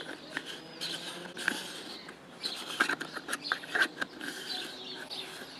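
Fingers handling a variable ND filter on a camera lens close to the microphone: an irregular string of clicks and scrapes, with birds chirping in the background.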